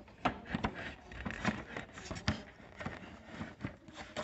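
Irregular light clicks, taps and scrapes of plastic parts being handled, as hands work at the loosened plastic instrument panel of a Voltz EV1 electric scooter.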